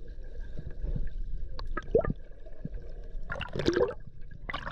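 Muffled underwater sound of a swimming pool picked up by a camera held below the surface: a low rumble of moving water with gurgles and small knocks, a louder gurgling burst about three and a half seconds in, and a splash as the camera breaks the surface near the end.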